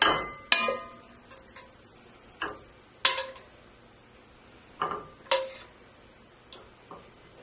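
A metal kitchen utensil knocking and clinking against a pot now and then while cooked beef chunks are lifted out of the broth: several sharp clinks at uneven intervals, some ringing briefly.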